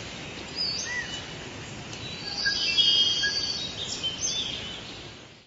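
Tropical forest ambience: several birds whistling and trilling over a steady hiss, fading out at the end.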